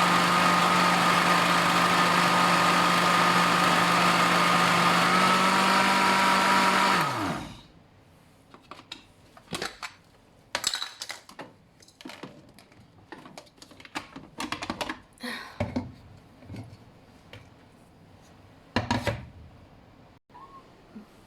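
Electric kitchen blender running on a wet mash of bread, puree and water for about seven seconds, its motor pitch stepping up slightly about five seconds in, then switched off and spinning down. A few scattered short knocks and clatters follow.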